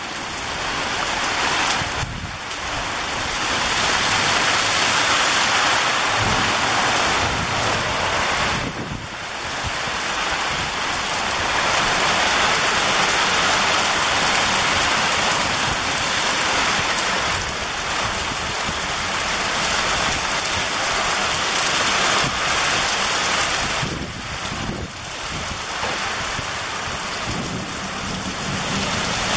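Heavy rain pouring in a thunderstorm: a loud, dense, steady hiss that eases briefly about three times, with low rumbling of thunder underneath.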